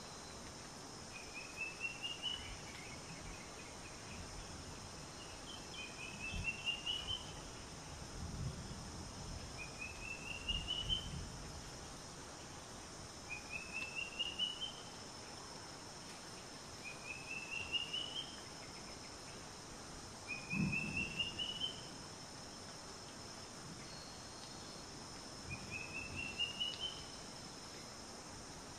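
Outdoor nature ambience: a short rising trill of rapid notes, bird or insect, repeats about every three to four seconds over a steady high hiss, with a few faint low thuds.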